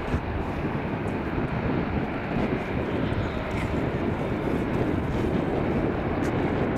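Distant Piaggio P-180 Avanti's twin pusher turboprop engines running on the runway for takeoff, heard as a steady rumble that grows slightly louder in the second half.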